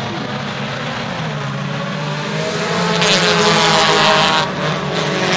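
A pack of compact dirt-track race cars running at speed, their engines droning together as the race gets under way. The sound swells sharply about three seconds in as the field passes close by, then eases slightly near the end.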